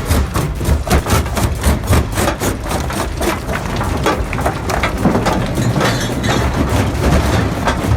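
Jaw crusher running and crushing rock, its moving jaw giving regular knocks about four or five times a second over a heavy rumble. After about three and a half seconds the knocks merge into a denser, continuous clatter.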